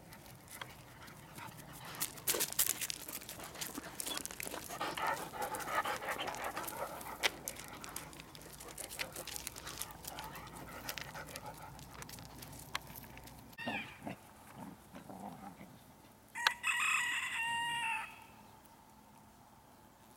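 Rooster crowing once near the end, a single pitched call lasting about a second and a half. Before it come scattered clicks and rustling, and a short falling call.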